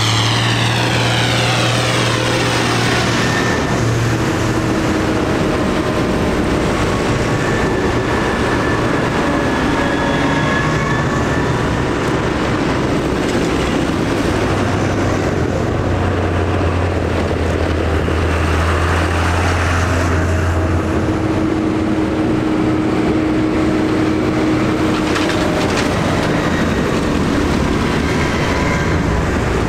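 A line of farm tractors driving past one after another, their diesel engines running steadily under tyre noise on the road. Near the start one engine's note falls in pitch as it goes by.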